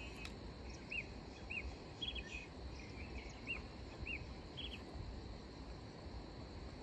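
A bird calling in short arched chirps, roughly one a second, stopping about five seconds in. Behind it run a steady high drone of crickets or other insects and a low background rumble.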